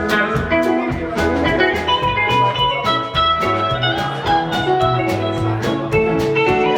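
Live rock band playing an instrumental jam: guitar lines over a steady bass and drum beat, with no vocals.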